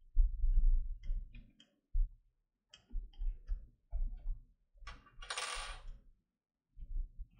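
Small scattered clicks and ticks of a 2 mm wrench working the access panel cover fastening on a plastic pump casing, with dull handling knocks near the start and a short scrape a little after five seconds in.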